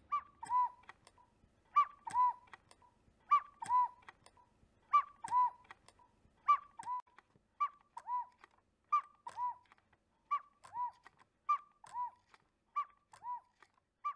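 Cuckoo clock's bellows-driven pair of whistles sounding its two-note 'cuck-oo', a higher note dropping to a lower one, repeated about every second and a half, each call opening with a small click.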